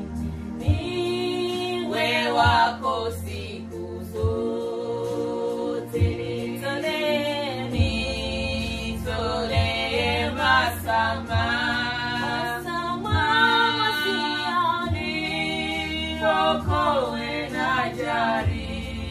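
Women's voices singing a Swahili gospel worship song in harmony, with long held and sliding notes over a sustained low accompaniment and a soft low beat about every two seconds.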